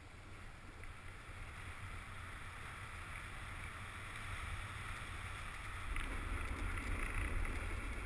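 Snowboard sliding over snow: a steady scraping hiss of the board on the slope, with low wind rumble on the microphone. It grows louder through the run, stepping up about six seconds in.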